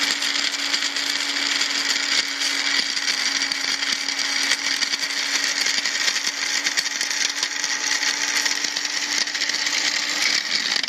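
Magic Bullet blender running steadily, its blades pulverizing dry dog kibble: a constant motor hum under a dense, gritty rattle.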